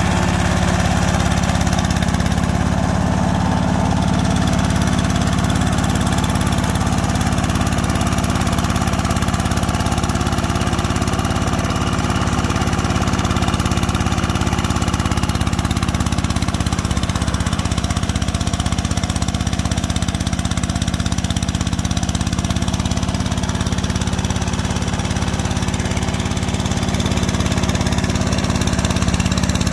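Engine of a two-wheel hand tractor with steel mud wheels, running steadily as it ploughs a flooded rice paddy.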